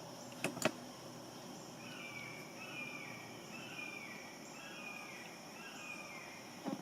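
A bird singing a run of short, downward-slurred chirps repeated several times, over a steady high insect drone, with two short clicks about half a second in.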